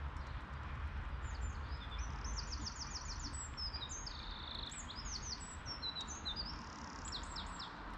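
A songbird sings phrases of rapid, short, high notes that slur downward, from about a second in until near the end. Underneath is a steady low rumble from the Class 142 Pacer railbus's diesel engine as it pulls away.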